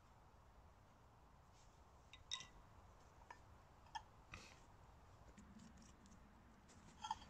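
Near silence, with four faint, short clicks scattered through it.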